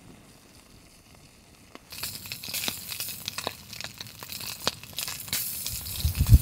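Wood campfire burning and crackling, with many sharp pops and snaps over a hiss, starting about two seconds in. A low rumble comes in near the end.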